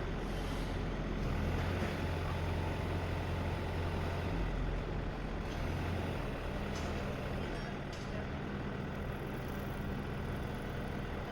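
Heavy diesel engine running steadily at low revs, a low hum that shifts slightly about a second in and again around six and a half seconds in, over a background of street noise.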